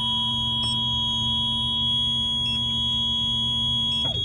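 Steady electronic alarm tones at two pitches: the lower tone stops about four seconds in, while the high-pitched tone carries on. The high tone is the warning alarm for the van's automatic wheelchair tie-downs, sounding as the EMC AEVIT driving system boots up.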